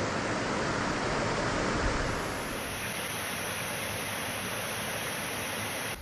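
Creek water running over shallow rock ledges and riffles, a steady hiss that thins slightly about two seconds in.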